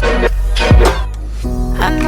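Background music from a song's wordless instrumental stretch: a deep drum hit under a second in, then held chords.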